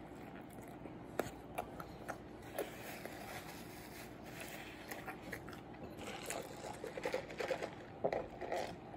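Faint close-up eating sounds: chewing and biting into a bacon Quarter Pounder, with small wet clicks of the mouth and crinkling of its paper wrapper, the clicks coming more often in the second half.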